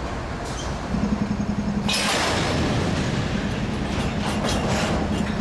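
Diesel-electric locomotive running as it moves slowly up to a hopper car, with a steady drone that sets in about a second in. A hiss starts about two seconds in and fades, with a few sharp metallic ticks near the end.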